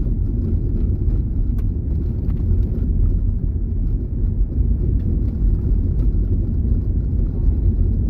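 Steady low rumble of a car's engine and tyres heard inside the cabin while driving on a dirt road, with a few faint ticks from the rough surface.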